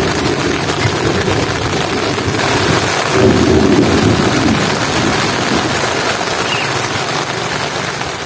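Heavy rain falling on tent and tarp fabric: a dense, steady rush with a low rumble underneath that swells about three seconds in.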